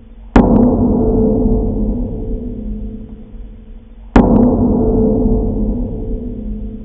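Deep struck-metal clang, gong-like, hit twice about four seconds apart. Each strike starts sharply and rings on in low steady tones that slowly fade before the next hit.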